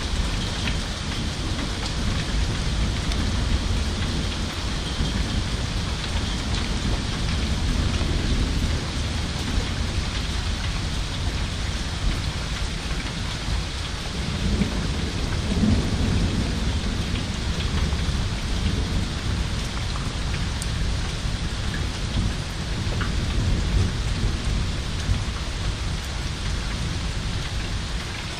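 Steady rain falling through a thunderstorm, with low rolls of thunder that swell loudest about halfway through and again about three quarters of the way in.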